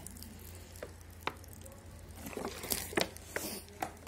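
Scattered light clicks and taps at irregular intervals, growing more frequent in the second half, over a low steady hum.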